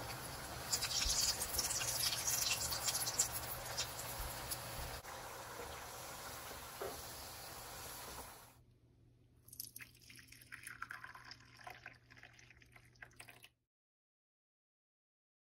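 Wet, crackling liquid kitchen sound with fine drips and pops. It drops abruptly to a quieter crackle about eight and a half seconds in, then cuts out to silence near the end.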